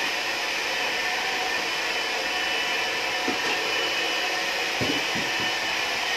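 A hair dryer running steadily: an even rushing of air with a faint thin whine in it.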